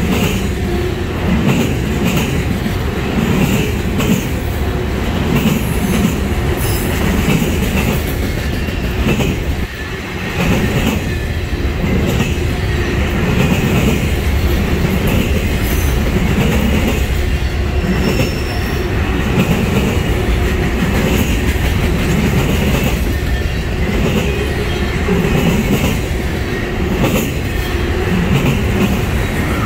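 Autorack freight cars rolling past close by: a steady rumble and clatter of steel wheels on rail, pulsing in a regular rhythm as the wheel sets go by.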